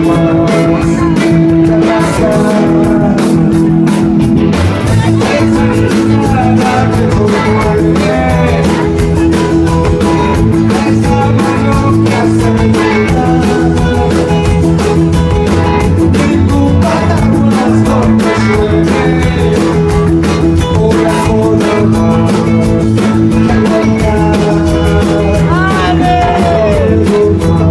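Live rock band playing loud over a PA, with electric guitars, drums and a lead singer, heard from within the crowd. The bass end fills out about five seconds in.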